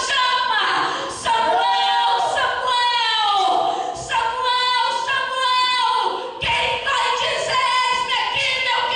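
A woman singing a cappella into a hand-held microphone, with long held notes.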